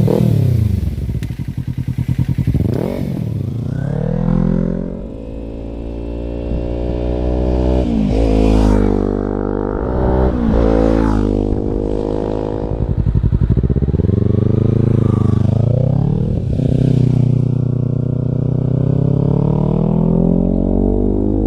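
A Kawasaki parallel-twin motorcycle engine revved through its exhaust several times, the pitch rising sharply and falling back toward idle between the revs.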